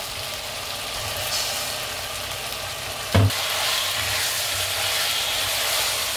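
Raw chicken pieces sizzling in hot oil in a stainless steel pot while a wooden spatula stirs them, with a single sharp knock about three seconds in. The sizzle grows louder after the knock as the chicken is turned through the hot masala.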